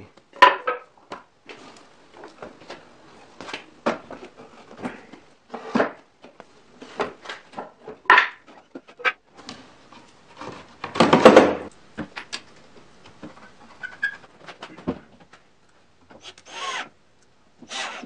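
Wooden workshop handling sounds: scattered knocks and clunks of wood as a bandsaw and wooden dolly parts are moved and fitted together. Near the middle there is a louder, rough noisy stretch of about a second, and two shorter ones near the end.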